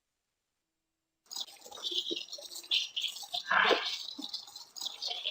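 Dead silence for about a second, then garbled, heavily filtered voice-like audio full of hiss and crackle, with a louder crackling burst about two-thirds of the way through: a processed recording played back in search of hidden voices.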